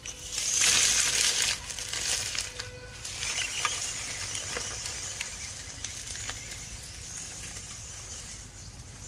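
Dry fallen leaves crunching and crackling under the tyres of an MN90 RC off-road truck as it crawls away across leaf litter, loudest in the first second or so and then fainter, with a few small sharp snaps further in.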